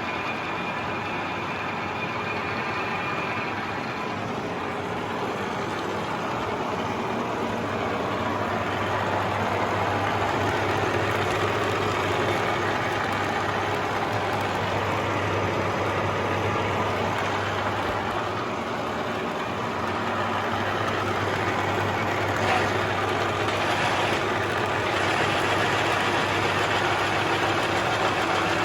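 Huron MU6 milling machine running: a steady mechanical hum and whir of motor and gearing. It grows louder about eight seconds in, dips briefly around twenty seconds, then picks up again.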